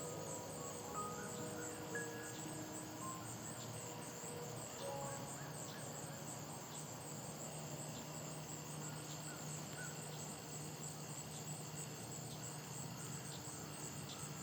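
Crickets chirping in a steady, fast-pulsing high chorus, with a few soft held music notes mostly in the first few seconds and a faint low hum.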